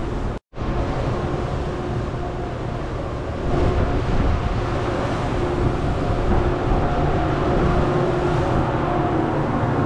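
Steady machinery hum, with a couple of held tones over an even rushing noise. It cuts to silence for a split second about half a second in and grows a little louder from about three and a half seconds.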